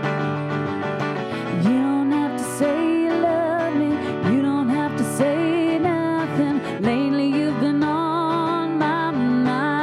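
Female singing with vibrato over an acoustic guitar accompaniment: a song performed by a vocal duo.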